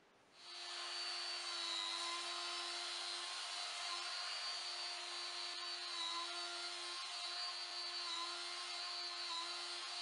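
Trim router with a surfacing bit running at a steady high speed, flattening a walnut slab as it is slid along a slab jig; a steady whine over the noise of the cut comes in about half a second in.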